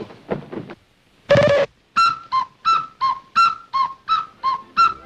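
A whistle-like wind instrument, clear and high, alternating a higher and a slightly lower note about three times a second, like a cuckoo call, starting about two seconds in. It is preceded by one louder, lower held note.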